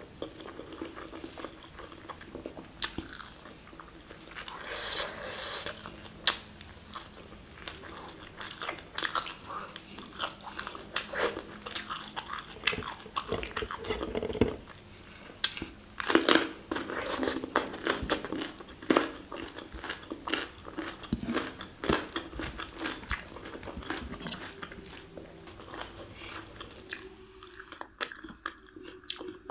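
Close-up chewing and mouth sounds of a person eating rice and mutton curry by hand, with crisp crunching bites of raw cucumber around the middle.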